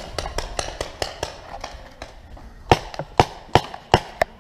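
Paintball markers firing: a run of lighter pops, then from a little over halfway louder, sharp shots coming about two to three a second.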